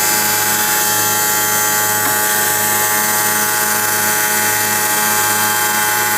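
Electric motor of a portable CNC ceramic tile cutting machine running steadily, a high whine with many steady tones over a low pulsing hum.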